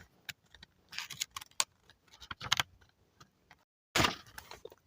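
Faint handling noise: a few short clicks and brief light rustles, with a moment of dead silence near the end where the recording cuts.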